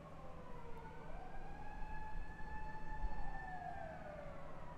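A siren wailing, its pitch sliding slowly down, rising again about a second in, holding, then falling near the end.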